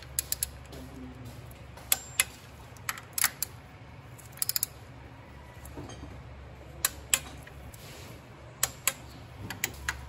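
Ratchet wrench tightening timing-chain cover bolts: scattered sharp metallic clicks, some in pairs, with a quick run of four clicks about halfway through, over a low steady hum.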